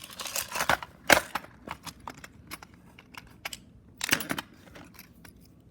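Small hard tools and a plastic cassette shell being handled on a desk: a flurry of clicks and clatter at the start with one sharp click just after a second in, scattered light ticks, then another brief clatter about four seconds in.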